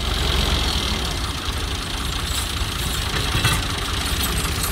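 Diesel tractor engines running steadily, the nearest a Ford 3610, as tractors hitched together work to pull a loaded trolley out of mud.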